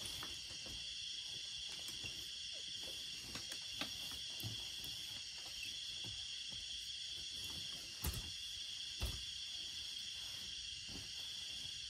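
A steady, high-pitched insect chorus, with a few scattered knocks and thumps, the loudest two about eight and nine seconds in.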